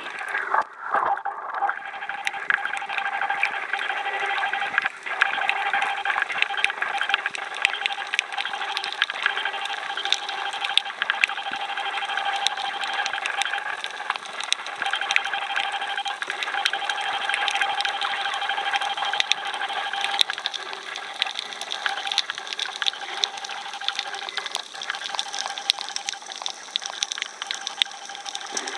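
Underwater sound picked up by a submerged camera in shallow sea water: a steady, dense crackle of tiny clicks over a constant hum.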